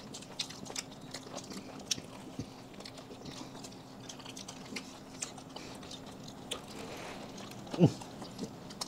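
People chewing and biting food close to the microphone: scattered wet mouth clicks and small crunches over a faint steady hum. A short vocal sound comes about eight seconds in.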